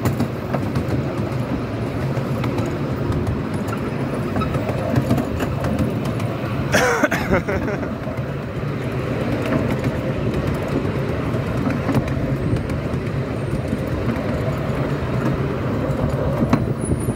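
Miniature railway train running along the track, a steady rumble and clatter of wheels on rails with frequent sharp clicks, and a brief hissing burst about seven seconds in.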